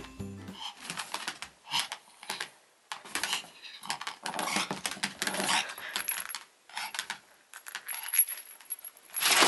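Small cat-toy balls clattering and clicking, in irregular bursts with short pauses.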